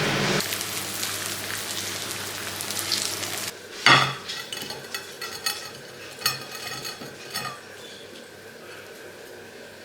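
Food sizzling in a frying pan, with a sharp metal clank of a utensil against the pan about four seconds in, followed by lighter clinks and scrapes.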